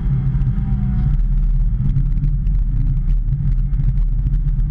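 Hitachi ZX210 excavator's diesel engine running steadily, its note changing about a second in.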